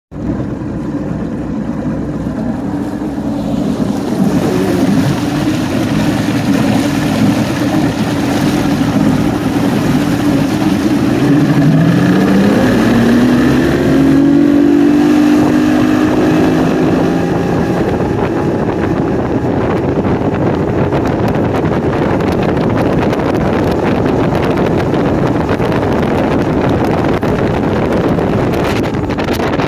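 Outboard motor of a 1989 Ranger 350V bass boat running under way. About eleven seconds in, the engine note climbs as the boat speeds up. After that, wind on the microphone and rushing water mostly cover it.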